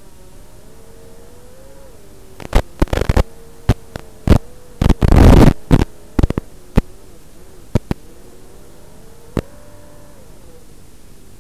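Brushless motors of a 6-inch FPV quadcopter in flight, their whine rising and falling in pitch with the throttle. A run of loud, sharp crackling bursts cuts in from about two and a half seconds in, loudest around five seconds, with one more near nine and a half seconds.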